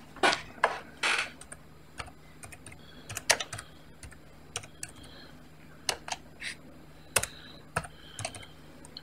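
Computer keyboard being typed on in irregular, scattered key presses and clicks, with a few short rustling bursts in the first second or so.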